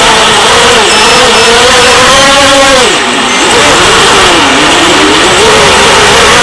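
ALIGN MR25P quadcopter's brushless motors and propellers whining, the pitch wavering up and down with the throttle. A little under three seconds in, the pitch drops sharply as the throttle comes off, then climbs back.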